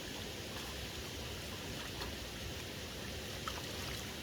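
Steady, even hiss of outdoor background noise, with a faint tick about three and a half seconds in.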